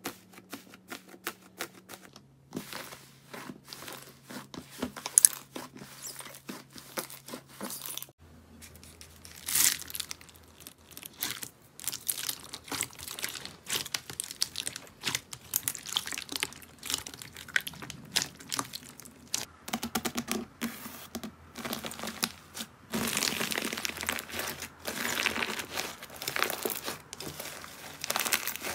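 Hands pressing, squeezing and stretching slime, making dense crackling pops and sticky squelches. Slime packed with foam beads crunches under the fingers, and the crackling grows denser and louder near the end as a dried clay-like layer cracks inside stretched slime.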